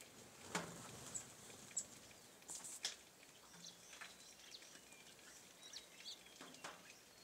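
Faint, scattered short bird chirps over quiet outdoor background noise, with a few brief clicks about half a second in and around three seconds in.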